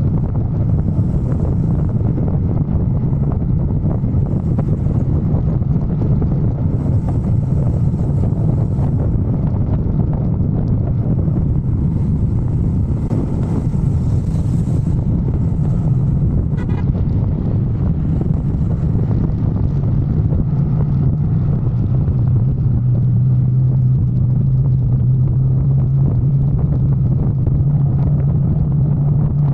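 Motorcycle running at a steady cruise on the road, with wind rushing over the microphone. The engine drone grows stronger about two-thirds of the way through.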